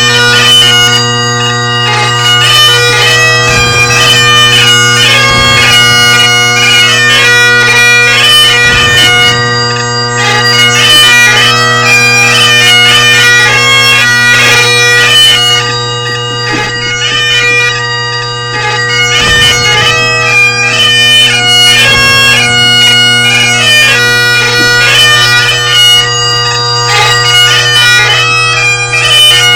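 Bagpipes playing loud: a steady drone underneath a quick-moving chanter melody, without a pause.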